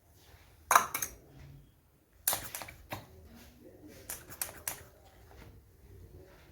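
Cupping cups being suctioned onto a patient's back: sharp plastic clicks and short pumping strokes in three brief clusters, about a second in, a little past two seconds and just past four seconds.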